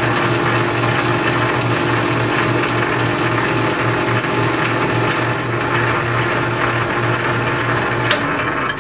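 1952 South Bend 10K lathe running with a fly cutter spinning in its four-jaw chuck, gouging a curved radius into an aluminium bar: a steady motor and gear hum with a hiss of cutting, and a faint high tick about twice a second through the middle. The lathe shuts off near the end.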